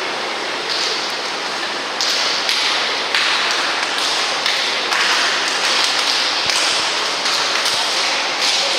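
Water splashing in a swimming pool during a water polo game, a steady rush broken by many sharp slaps and taps on the water.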